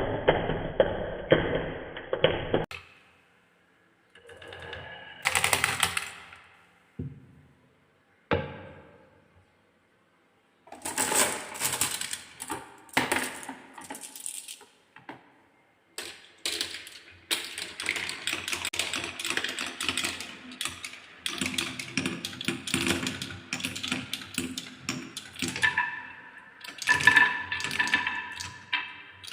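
Marbles and balls rolling and clattering down a handmade wooden marble run: quick runs of clicks and knocks, broken by short silences in the first half and packed densely later. Near the end a ringing tone sounds over the clatter.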